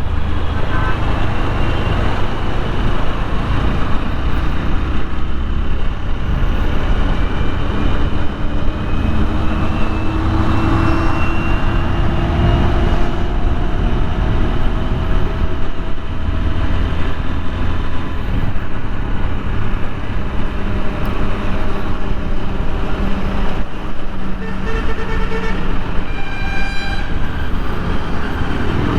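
TVS Apache 160 4V motorcycle's single-cylinder engine running on the move in traffic, under a steady wind rumble on the microphone. A vehicle horn sounds near the end.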